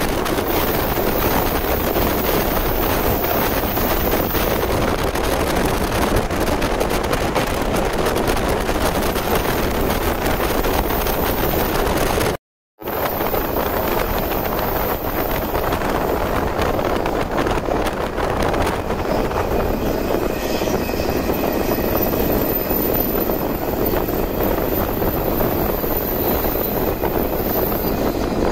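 Steady running noise of a JR 185 series electric train travelling at speed, with a faint high whine over its second half. The sound cuts out for a fraction of a second about twelve seconds in.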